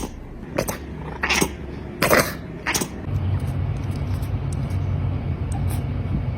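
A cat makes four short, breathy bursts in the first three seconds, then purrs in a steady low rumble.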